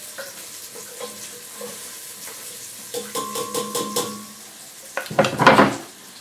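Chopped onions and garlic scraped off a cutting board into a pot of hot olive oil, frying under a steady sizzle. About three seconds in comes a run of quick taps that ring on the metal pot, then near the end a loud burst of sizzling and scraping lasting about a second.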